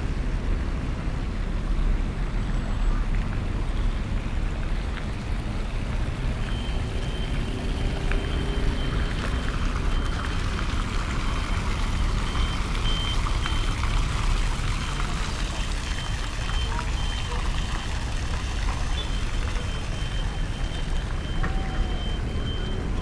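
City street ambience with a steady low traffic rumble. About six seconds in, a thin high tone starts and holds.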